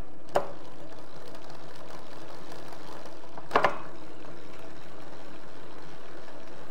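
E-bike chain and 7-speed rear derailleur running steadily as the rear wheel spins, the derailleur just tuned to run smooth and quiet. A sharp click comes about half a second in and a quick double click at about three and a half seconds, as the gears are shifted from the handlebar.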